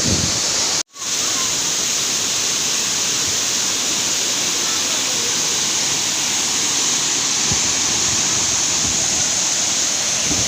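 Waterfall: a steady, loud rush of falling water that cuts out for a moment about a second in.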